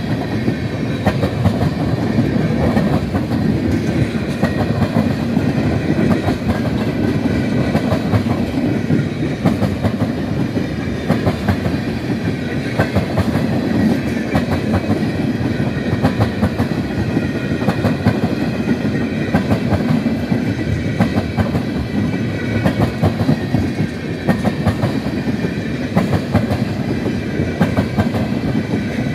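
Freight train tank cars rolling past close by: a steady rumble of steel wheels on rail, with frequent sharp clicks as the wheels cross rail joints.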